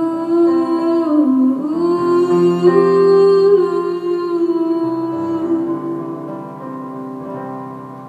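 A woman sings a long wordless line over her own piano playing, her voice sliding between held notes. The music fades down near the end as the song closes.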